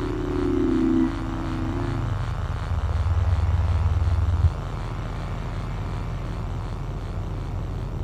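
Generator low-moan sound effect: a steady low humming drone, with a wavering moaning tone over it for the first two seconds. A deeper, louder swell comes in about three seconds in and cuts off abruptly.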